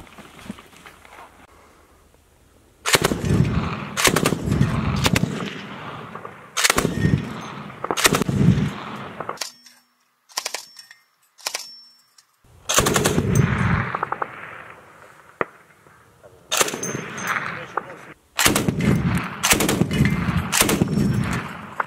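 NSV 12.7 mm heavy machine gun firing a series of short bursts, each trailing off in a rolling echo. A quiet gap of a few seconds comes about ten seconds in.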